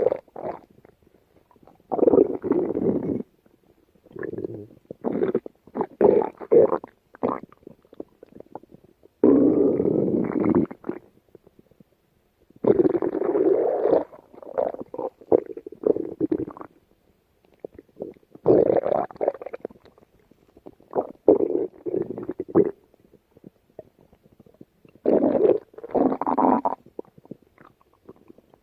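A stomach growling and gurgling in a run of about a dozen separate rumbles, some short and some lasting a second or more, with short quiet gaps between them.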